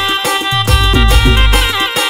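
Gujarati timli dance music in a DJ remix: a melody line with pitch bends over heavy bass and steady drum beats.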